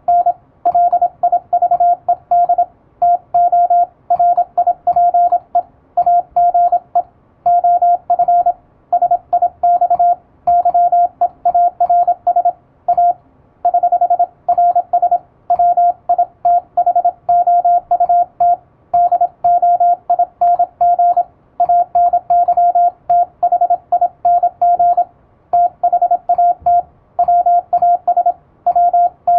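Morse code sidetone from an electronic keyer: a single-pitched beep keyed on and off rapidly in dots and dashes, sending English-alphabet text in word groups separated by short pauses.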